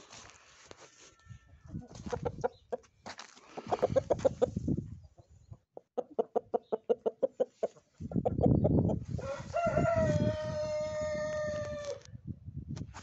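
Light Brahma rooster clucking in short runs, then a rapid string of clucks, then one long crow held for nearly three seconds near the end. A burst of low rumbling noise comes just before the crow.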